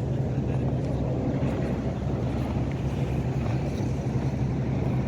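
Steady low engine hum with a deep even drone, mixed with wind on the microphone.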